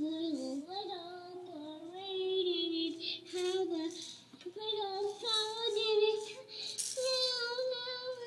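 A young girl singing long, wavering notes, with short breaks between phrases.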